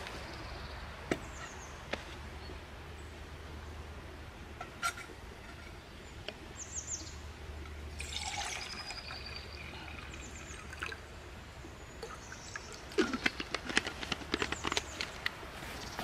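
Water poured from a plastic bottle into a metal camping pot, about halfway through. Birds chirp briefly now and then, and near the end comes a quick run of sharp crackling clicks.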